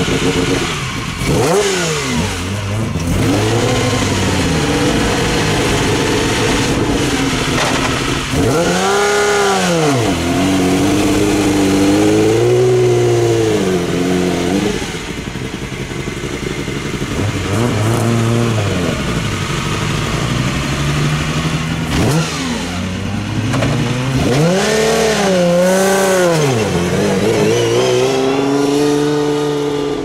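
Lancia Stratos rally car's engine blipped repeatedly at low speed. Each blip rises and falls in pitch, with a lumpy low-speed running note in between.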